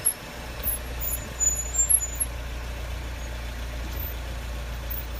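Steady low engine hum heard from inside a vehicle's cabin, the engine running at low revs. A few short knocks come in the first two seconds.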